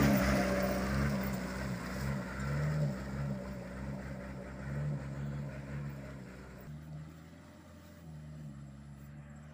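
Old steel-bodied truck's engine running as it passes close by and then pulls away up a muddy track. The engine note rises and falls with the throttle, and it fades steadily as the truck moves off.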